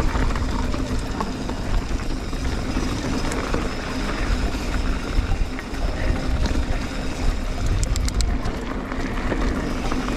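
Mountain bike riding down a dry, rocky dirt singletrack, heard from the rider's camera: wind rumble on the microphone over steady tyre noise on dirt and stones, with a few sharp ticks about eight seconds in.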